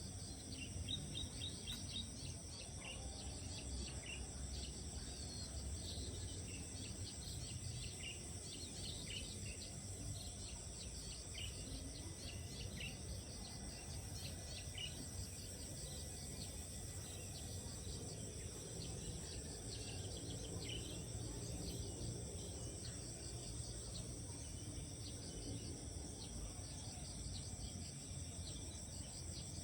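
Insects trilling steadily in high, unbroken tones, with many short bird chirps scattered over them and a low rumble underneath.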